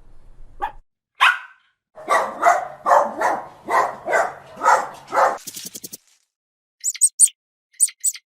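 A dog barking, about eight barks in quick succession, with short high-pitched chirps near the end.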